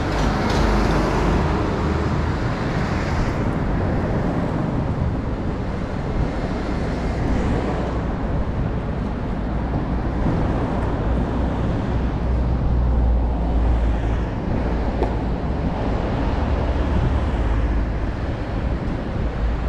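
Road traffic: cars and a small truck passing on the street alongside, over a steady noise with a low rumble that swells and fades every few seconds.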